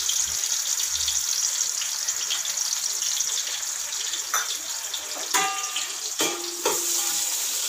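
Sliced onions and whole spices sizzling in hot oil and freshly poured ghee in an aluminium pot, a steady frying hiss. From about four seconds in, a few sharp metal clinks with brief ringing as metal utensils knock against the pot.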